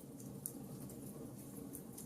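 Campfire crackling: scattered small, sharp pops and snaps over a low, steady rumble of burning, with one louder pop about half a second in.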